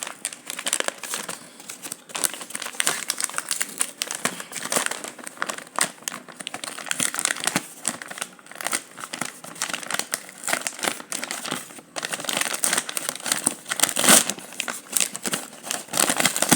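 Parcel packaging being crumpled, crinkled and torn by hand as it is opened, an irregular crackling throughout that is densest near the end.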